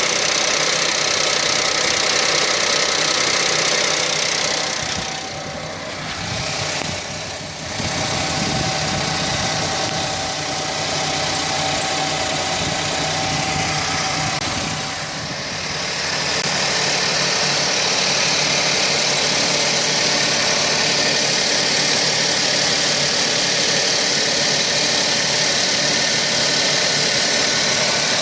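Suzuki Wagon R Stingray (MH44S) engine running, with an intermittent chirping squeal from the ISG (integrated starter generator) under the engine bay. The noise is the sign of a worn ISG shaft bearing: a new belt and tensioner did not stop it, and replacing the ISG did. The sound drops in level for a few seconds about five seconds in.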